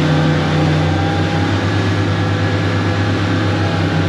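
Motorboat engine running steadily under way: a constant low drone over a broad steady hiss.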